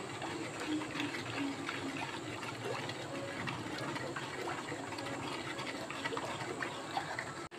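Steel ladle stirring a thick wheat-flour and palm-jaggery halwa batter in an aluminium pan as it cooks and thickens: a steady wet sloshing with faint clicks of the ladle. It cuts off suddenly near the end.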